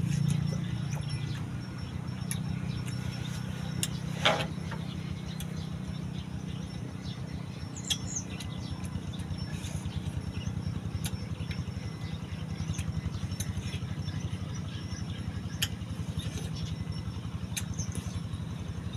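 Watermelon being bitten and chewed, with scattered sharp clicks, over a steady low pulsing drone. A bird chirps briefly about eight seconds in.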